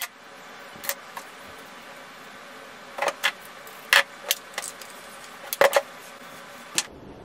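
Hairbrush being run through a section of long hair, with several short sharp swishes and clacks as the brush passes, over a steady hiss that stops abruptly near the end.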